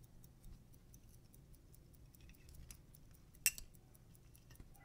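Faint small clicks of metal and plastic as an enamel dial is pried off a pocket watch movement with a plastic lever, with one sharper click about three and a half seconds in.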